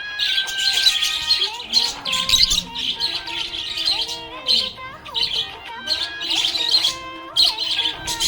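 Budgerigar chirping and warbling in rapid bursts, repeated every second or so, over a melodic music track.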